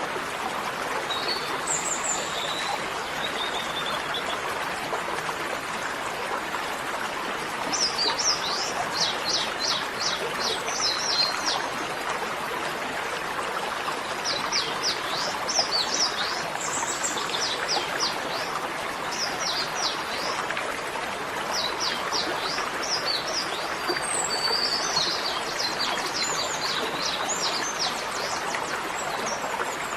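A small bird chirping in several quick runs of short, high chirps, over a steady rushing noise like running water.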